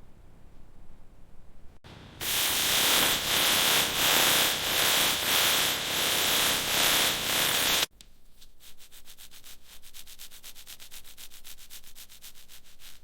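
Abrasive sanding or scrubbing on a fiberglass boat hull, in two edited takes. First a loud, steady rasping lasting about six seconds, then a quieter stretch of rapid, even rubbing strokes.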